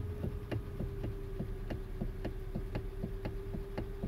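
Rapid, fairly even clicking from the electric power steering of a 2012 Hyundai Elantra as the wheel is moved, about five clicks a second over a steady hum. It is the sign of a worn steering coupler in the power steering motor.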